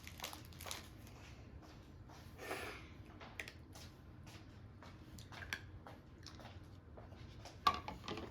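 Small scattered clicks and taps of candy cookie decorations being handled and pressed onto a cookie, with a brief rustle about two and a half seconds in and a sharper click near the end.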